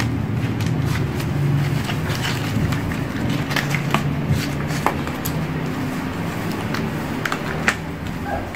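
Scattered small clicks and taps from handling phone accessories and their plastic packaging, over a steady low background hum.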